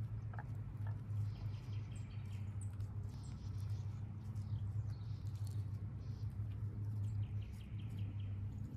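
Woodland ambience: a steady low hum with faint rustling, a few short high chirps and two quick runs of high ticking, about a second in and near the end.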